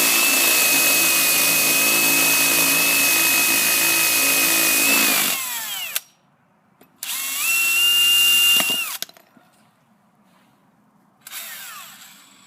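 Electric drill boring into the thick metal of a deadbolt lock: one steady run of about five seconds that winds down, a second run of about two seconds, and a short blip near the end that spins down.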